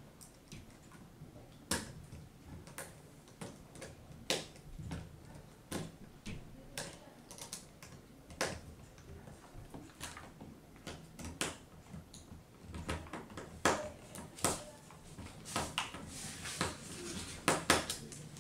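Small screwdriver driving a screw into a laptop's LCD screen assembly: irregular clicks and taps of metal tool on screw and plastic, louder and closer together near the end.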